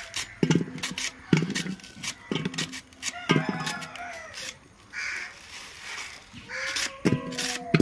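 Knife cutting through taro stalks, with the slices dropping into an aluminium basin in a steady rhythm of about one short knock a second. A few drawn-out, falling animal calls sound in between.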